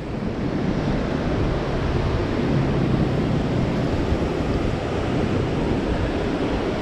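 Steady rush of wind over the microphone of a camera carried on a moving bicycle. It grows a little louder over the first second and then holds even.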